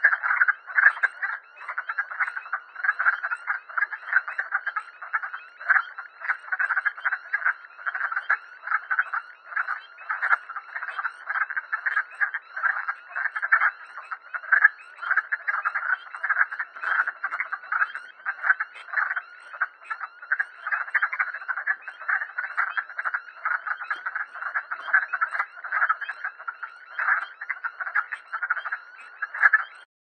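A breeding chorus of wood frogs: many short, duck-like clucking calls overlapping in a dense, unbroken stream.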